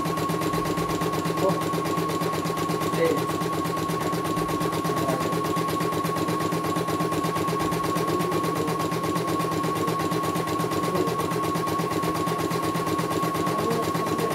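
CNY E900 portable computerized embroidery machine stitching a design: a rapid, steady needle clatter under a constant high motor whine.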